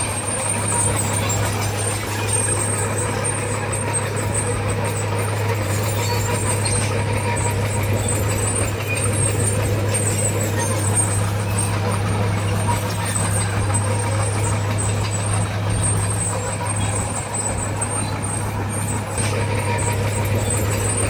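Diesel engine of heavy earthmoving machinery running steadily at a constant pitch, with a faint high whine.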